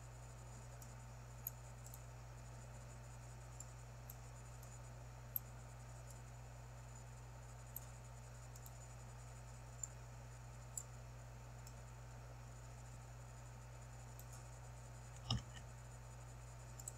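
Computer mouse clicks, sparse and a second or more apart, over a steady low hum, with one louder knock near the end.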